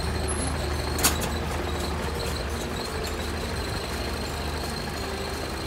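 Hino Ranger truck's diesel engine idling steadily, with one sharp click about a second in.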